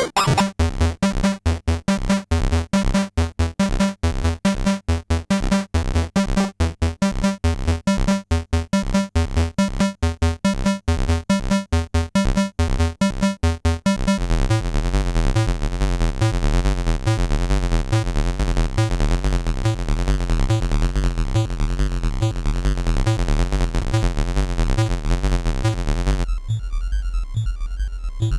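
Soulsby miniAtmegatron 8-bit Arduino synthesizer playing a sequenced electronic pattern. It starts as rapid, choppy short notes, then about halfway through changes to a continuous, pulsing, bass-heavy sound. Near the end the high tones drop away, leaving the low pulse.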